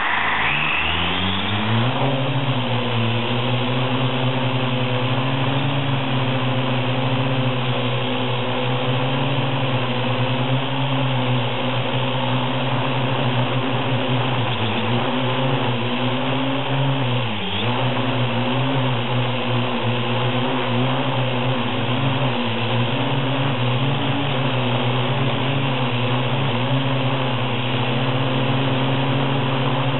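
Parrot AR.Drone quadcopter's four electric rotor motors spinning up to lift-off, rising in pitch over the first couple of seconds, then a steady loud whine while it flies, with a brief dip in pitch about halfway through. Heard from a camera strapped to the drone's hull, close to the motors. The drone is carrying a 155 g compact camera that may be too heavy for it.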